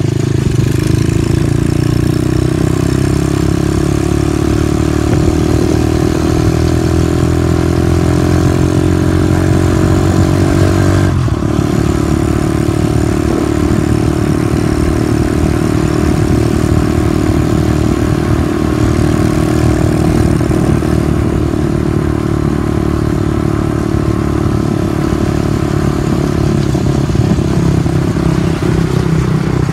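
Small dirt bike's engine running while riding, its pitch climbing slowly for about ten seconds. About eleven seconds in it dips briefly, then runs on steadily at a lower pitch.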